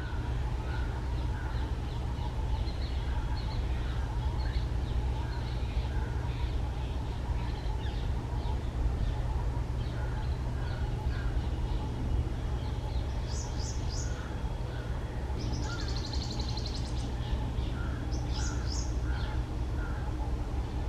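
Wild birds calling in a wetland: a scatter of short, repeated chirps and notes, joined in the second half by a few higher, buzzy trills, over a steady low rumble.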